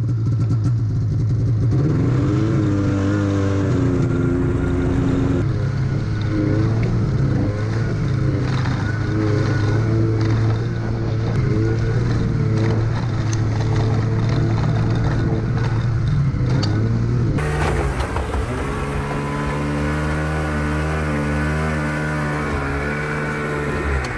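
Snowmobile engine running under way, its pitch rising and falling with the throttle as the sled is ridden along a bumpy trail. About two-thirds of the way in, a different snowmobile engine takes over, running at low, steady revs as the sled is driven up onto a truck deck.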